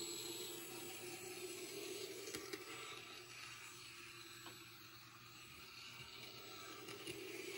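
Small electric motor of a Kato 11-109 N-gauge powered chassis running as the model cable car travels along the track: a faint steady whir with a few light clicks. It fades slightly around the middle and grows again near the end.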